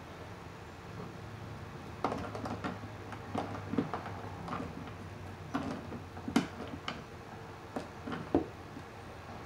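Irregular small clicks and light taps of pliers, copper wire and a wire nut being handled inside a metal electrical junction box, starting about two seconds in.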